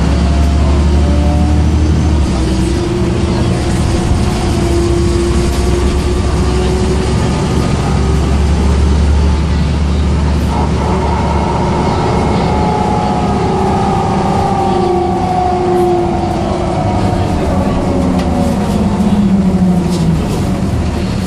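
Mercedes-Benz O405 bus from inside the cabin: a low diesel drone under the howling whine of its ZF automatic gearbox. The whine rises in pitch as the bus speeds up, climbs again about halfway through, and falls away near the end as the bus slows.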